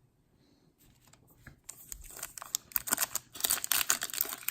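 Foil wrapper of a Topps Chrome trading-card pack crinkling and tearing as it is opened by hand. The wrapper starts up about a second and a half in and gets louder toward the end.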